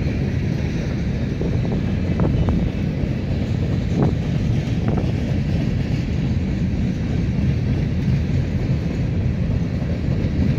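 Freight cars rolling past on the rail line: a steady low rumble with a few scattered knocks from the wheels, mixed with wind buffeting the microphone.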